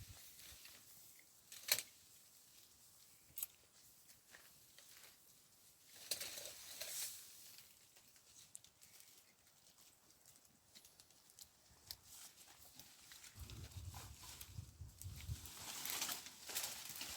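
Faint rustling and crackling with a few sharp clicks, growing louder for a moment twice, once about six seconds in and again near the end.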